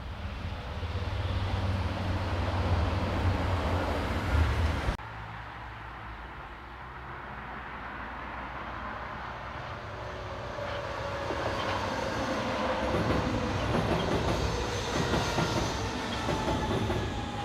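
Trains running through a station in two cuts. First comes a loud, steady low hum of a passing train. After an abrupt change about five seconds in, a second train draws near, with a slowly falling whine and wheel clicks over the rails getting louder toward the end.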